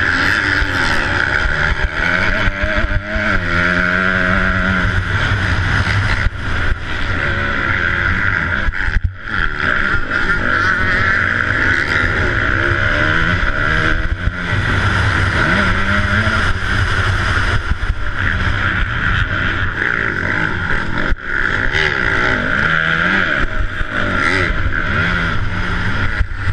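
A 250 four-stroke motocross bike's engine revving hard at race pace, its pitch climbing and falling over and over as the rider works the throttle and gears. Heard from the rider's helmet camera, it drops off briefly about nine seconds in and again about twenty-one seconds in.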